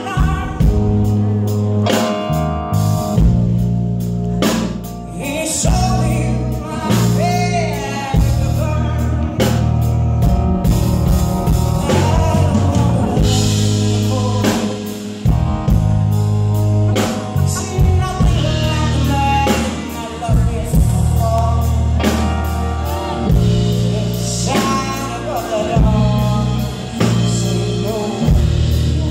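Live blues-rock band playing: a woman's lead vocal over electric bass guitar, drum kit and piano.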